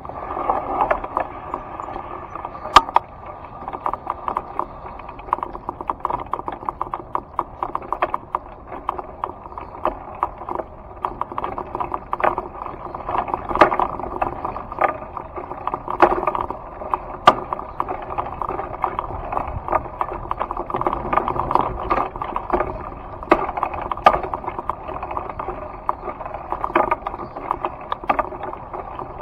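Motion noise of a camera being carried along a gravel path and over grass: a steady rough rustle with frequent irregular clicks and rattles.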